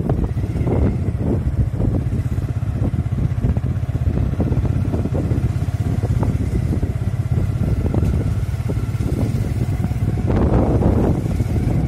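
Motorcycle riding over a rough dirt track: engine running under a heavy low wind rumble on the microphone, with frequent knocks and rattles from the bumps. The noise swells for about a second near the end.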